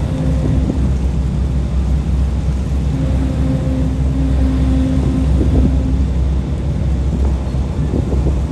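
River ferry's engine running with a steady low rumble, mixed with wind buffeting the microphone. A steady hum sounds briefly at the start and again for about three seconds from three seconds in.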